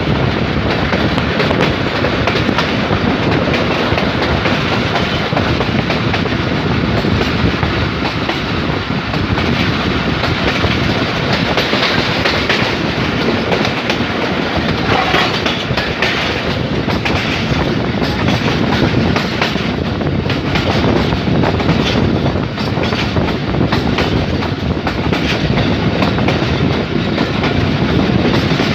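Passenger express train rolling through a junction, a steady loud rolling noise of coaches passing with repeated short clicks of wheels over rail joints.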